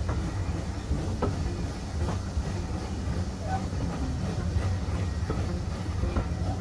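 Heritage steam-hauled passenger train running along the line, heard from a carriage: a steady low rumble with occasional sharp clicks of the wheels over rail joints.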